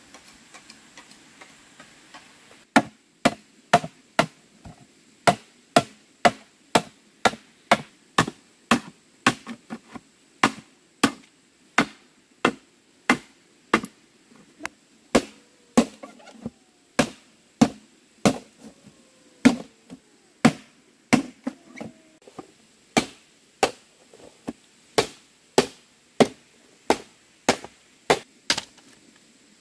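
Steady chopping on wood, sharp blows at about two a second, starting nearly three seconds in and keeping up an even rhythm.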